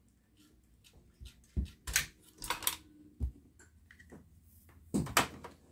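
Handling noise as the degauss coil cable is unplugged at its plastic connector and pulled free of a CRT monitor's chassis: scattered light clicks and knocks of plastic and wire. The loudest come about two seconds in and again near the end.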